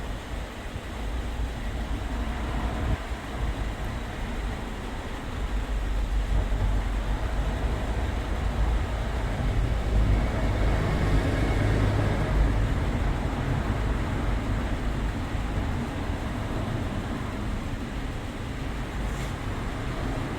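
Kia K3 car engine idling with a steady low rumble while its air-conditioning system is charged with refrigerant that had mostly leaked out.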